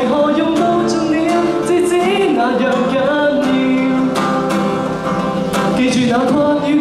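A young man singing a Cantonese pop song into a microphone while strumming a steel-string acoustic guitar, holding long notes.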